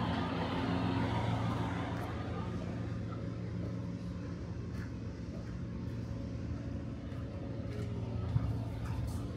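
Road traffic rumbling steadily, louder in the first couple of seconds as a vehicle goes by and then easing off. There is a single short tap about eight seconds in.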